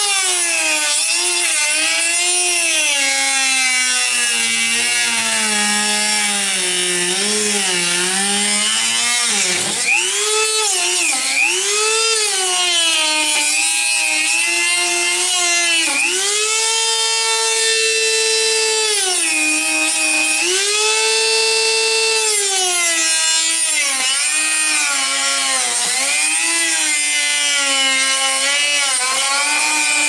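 Rotary tool with a small cutoff disc cutting into the plastic housing of a refrigerator water filter along its seam. The motor's high whine sags in pitch whenever the disc bogs down in the cut and climbs back toward full speed when pressure is eased, over and over, with the deepest drop about a third of the way in.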